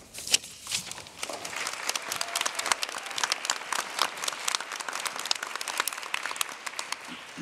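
Audience applauding after a poem reading. It starts with a few scattered claps, builds to full applause within about two seconds, then dies away near the end.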